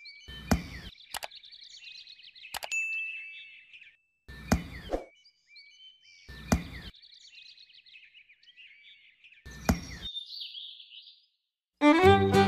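Birds chirping behind several short scraping knocks, about four in all, as small craft pieces (a black card edging and a popsicle-stick fence) are pressed into sand. Music starts shortly before the end.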